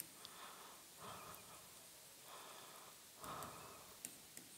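Near silence: quiet room tone with a few faint breaths and some tiny clicks.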